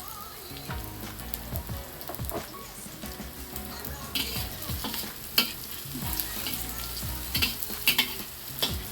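Sliced shallots and garlic sizzling as they fry in hot oil, turning golden. A spatula stirs them and scrapes the pan with sharp clicks, more of them from about four seconds in.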